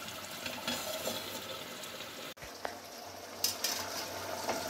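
Chicken curry boiling in a pot on the stove, a steady bubbling and sizzling as it finishes cooking with the oil risen to the top. A brief gap breaks it a little past halfway.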